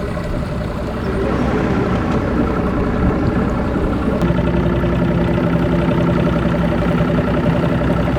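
An engine running steadily, getting louder about a second in, with a steady pitched hum joining about four seconds in.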